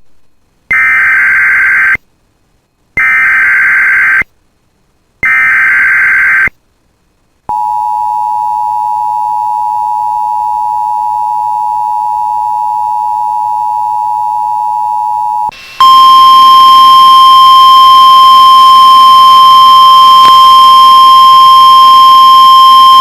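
Emergency Alert System tornado-watch alert: three short buzzy SAME digital header bursts with gaps between them, then the steady two-tone EAS attention signal for about eight seconds, then a louder single-tone NOAA Weather Radio alert tone that runs on.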